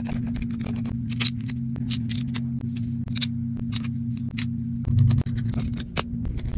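Small irregular clicks and taps of metal repair tools and plastic and metal phone parts as a smartphone is taken apart, over a steady low hum, with a louder bump about five seconds in.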